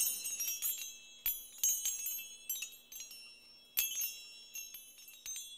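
Tinkling chime sound effect: high bell-like notes struck at irregular intervals, each ringing out briefly, with the strongest strikes about a second in and again near four seconds.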